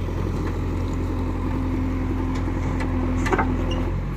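Diesel engine of an earthmoving machine running steadily at a low, even pitch, with a few faint clicks about three seconds in.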